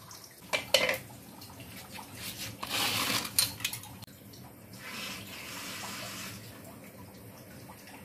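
Tap water running in two short bursts over gutted threadfin bream in a plastic colander, with a few sharp knocks near the start.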